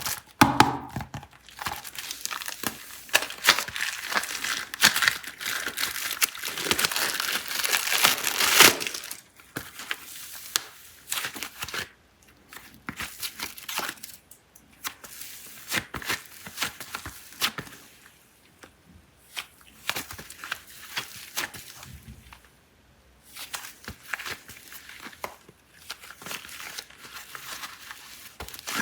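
Plastic packaging of super clay crinkling and tearing as it is unwrapped. A dense run of crackly rustling lasts about nine seconds, then gives way to sparser crinkles and small clicks with brief pauses.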